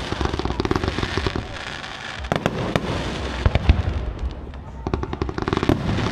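Fireworks display: aerial shells bursting in rapid runs of crackling pops over low booms, thinning briefly about two-thirds through before picking up again.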